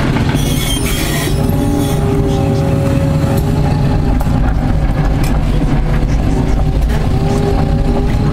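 Liebherr 944C excavator's diesel engine and hydraulics running steadily under load, heard from inside the operator's cab, with a whine that shifts in pitch as the boom swings and the bucket digs into gravel. A brief hiss comes about half a second in.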